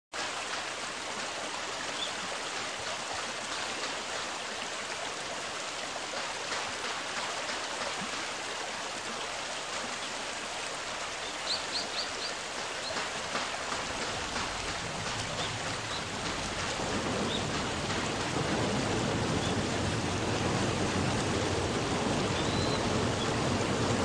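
Steady rush of flowing water, with a few short, faint high chirps about halfway through. Toward the end, a low rumble joins and the sound grows slightly louder.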